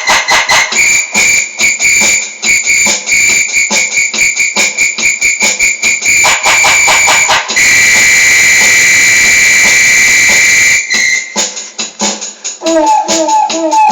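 Electronic keyboard hammered in rapid repeated high notes with a jangly, tambourine-like attack. About halfway through, a single high tone is held for about three seconds. A short repeated run of lower notes follows near the end.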